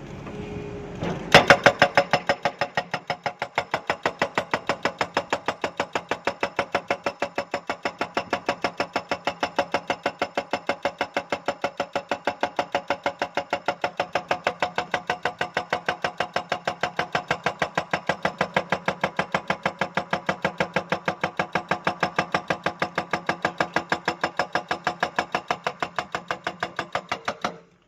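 Excavator-mounted hydraulic breaker hammering rock: a fast, steady run of sharp metallic blows, about five a second. It starts about a second in and stops abruptly near the end.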